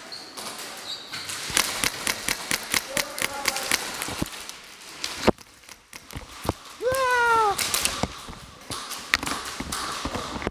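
Airsoft guns firing a run of sharp shots at about four a second, then scattered single shots, in a large echoing warehouse hall. About seven seconds in comes a brief yell that falls in pitch.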